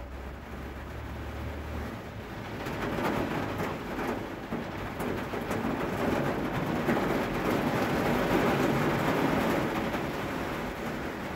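Rain falling, a steady hiss that grows heavier from about three seconds in and eases a little near the end.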